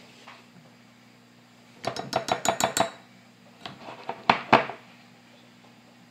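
Light clinks of metal measuring spoons and a glass measuring cup being handled: a quick run of about eight taps about two seconds in, then a few more about a second later.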